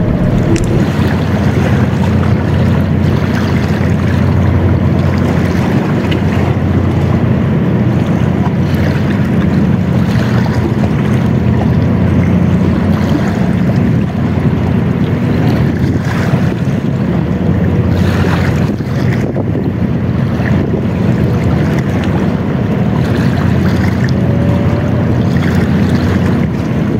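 Wind buffeting the microphone in a steady low rumble, over waves washing against shoreline rocks.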